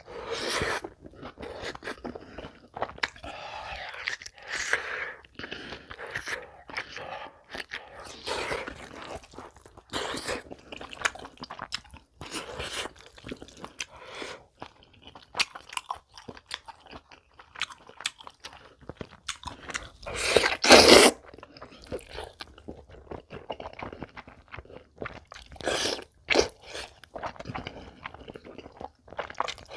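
Close-miked eating: a person chewing and biting into crunchy food, with many irregular crunches and mouth noises. The loudest crunch burst comes about two-thirds of the way through.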